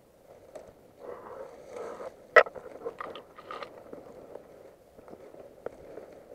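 Close crunching and scraping, with one sharp, loud snap about two and a half seconds in and a smaller click near the end.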